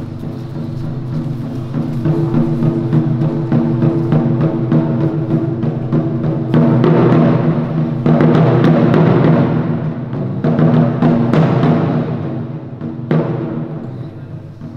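Taiko drumming: rapid stick strokes on large barrel-bodied nagado-daiko drums, swelling louder through the middle, with one sharp hard stroke near the end before easing off.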